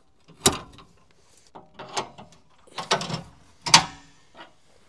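Irregular sharp metal clanks and chain rattles from a weight distribution hitch's spring bars, chains and snap-up brackets being set, about five knocks with the loudest near the end.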